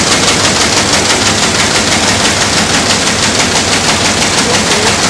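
Kern 3500 Silverline high-speed envelope-inserting machine running at full speed: a loud, fast, even mechanical clatter of its feeder and inserting mechanisms.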